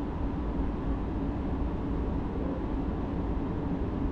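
A JR Hokkaido 733-series electric train pulling out of a station and gathering speed, heard from inside the carriage: a steady low running noise of motors and wheels on the rails.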